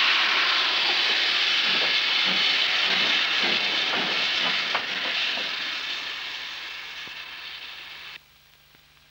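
Great Western Railway steam locomotive hissing loudly with escaping steam, with a run of low chuffs about two a second as it moves. The sound fades and then cuts off suddenly near the end.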